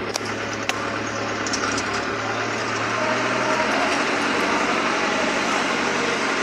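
Hino FB truck's diesel engine running steadily as the truck drives, with road and wind noise, heard from inside the cab. Two sharp clicks come in the first second.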